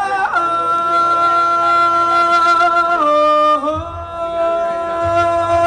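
Male soca singer holding long notes into a microphone through the PA. The first steady note lasts about three seconds, dips briefly, then settles into a second, slightly lower note, and a low bass comes in under it about four seconds in.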